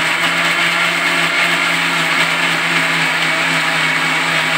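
Electric mixer grinder running steadily at speed in its stainless-steel jar, blending a milk shake of banana, chikoo and oats: a loud, even motor hum with the churning of the liquid.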